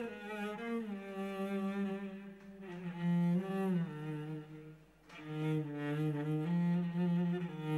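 Background score: a slow melody of long held notes on low bowed strings.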